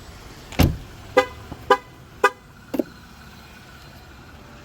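A knock, then four short pitched beeps about half a second apart from the 2024 Jeep Wrangler Rubicon.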